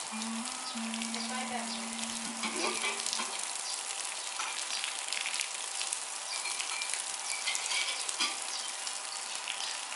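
Rain pattering steadily on wet ground and grass: a dense, even patter of many small drops.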